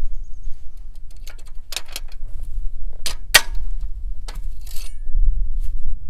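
A ratchet wrench and hammer working loose and knocking out the bolts that hold the steel rock guards on a New Holland 451 sickle bar mower's cutter bar. Sharp metal-on-metal taps and clinks come several times, the loudest about three seconds in, with a short rattle of loose metal near the end. A low rumble runs underneath.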